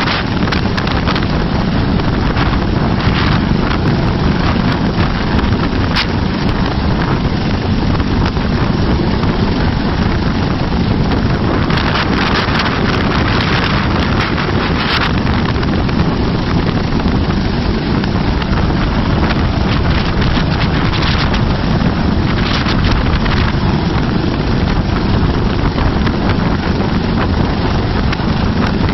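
Steady, loud wind buffeting the microphone, a continuous low rumble with no let-up.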